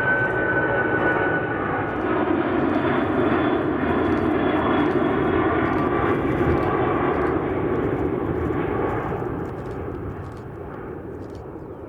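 Boeing 747-400 freighter's jet engines running loud and steady, with a high whine that drops slightly in pitch in the first seconds. The sound fades away over the last few seconds.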